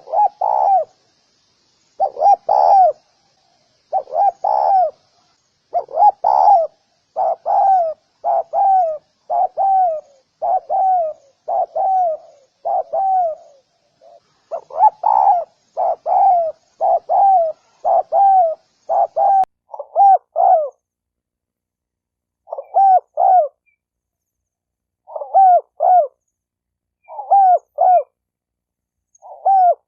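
Spotted dove cooing: a run of short hooting coos, each dipping in pitch at its end, about one a second, then sparser paired notes in the last third.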